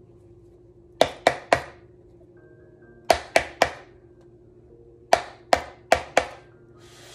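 Small obelisk knocked against the edge of a deck of tarot cards in three sets of sharp taps, three, then three, then four, each tap with a short ring. A brief rustle of the cards comes at the very end.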